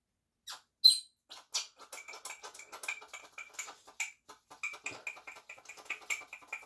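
Small hard parts of an RC truck shock being handled during a rebuild: one sharp click with a brief metallic ring about a second in, then a quick run of light clicks and ticks, about four to five a second.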